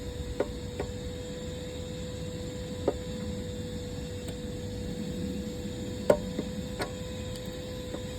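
A few scattered light clicks and taps from handling plastic car interior trim and clips, over a steady background hum.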